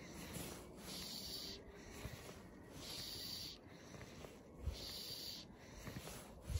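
Fly line being stripped in by hand: a faint rasping hiss with each long pull, about once a second, with short gaps between.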